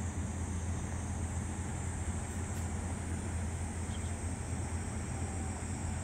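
Steady low rumble with a faint hiss: outdoor background ambience with no distinct event.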